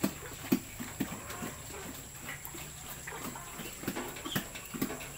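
A sow and her newborn piglets in a farrowing crate: scattered short grunts and knocks, several in the first second and a few more near the end.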